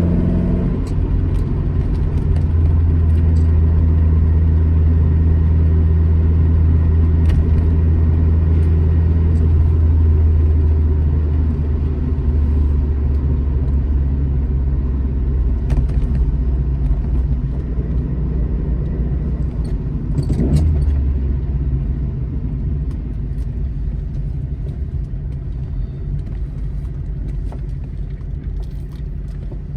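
Alfa Romeo GT Junior's twin-cam four-cylinder engine running under way on the road. Its note drops about ten seconds in, swells briefly around twenty seconds, and climbs again at the very end as the car accelerates.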